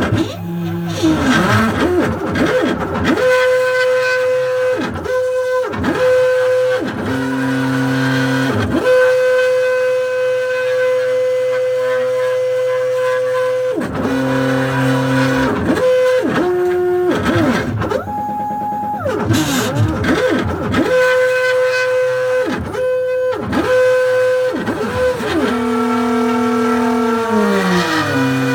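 Stepper motors of a CNC machine whining as it plots, holding steady pitches for a few seconds at a time and changing pitch with each move. Quick rising and falling sweeps mark the moves speeding up and slowing down, and a slower falling glide comes near the end.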